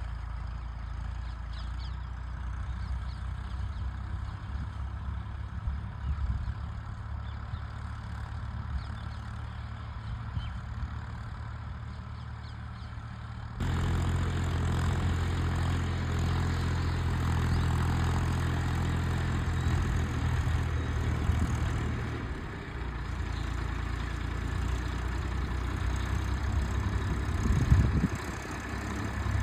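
Tractor engine running steadily with a low drone, getting abruptly louder about halfway through.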